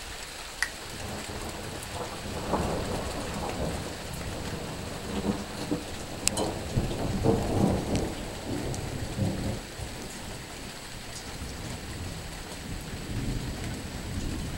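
Thunder rumbling in rolling waves, loudest about two to three and seven to eight seconds in, over a steady hiss of rain.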